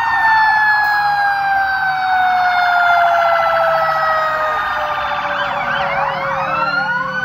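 Fire truck sirens: one long siren tone winds slowly down in pitch, and from about five seconds in more sirens start wailing up and down over it.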